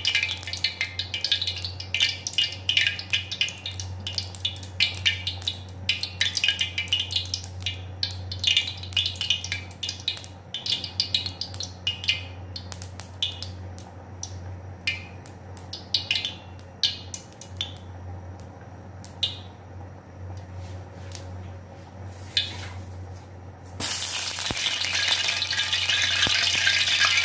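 Hot cooking oil in an aluminium wok crackling and popping with scattered water droplets, the pops thinning out over time. About 24 seconds in, water flicked into the oil sets off a sudden loud sizzle that keeps going: the oil has now reached frying heat.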